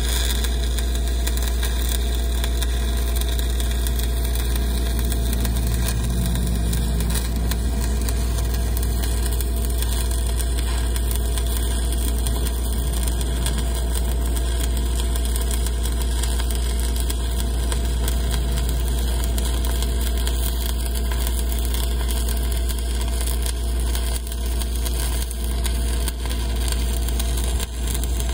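Stick-welding arc crackling steadily as a 3/32-inch 7018 rod burns on a pipe flange, over a steady low engine drone. The level dips briefly a few times near the end.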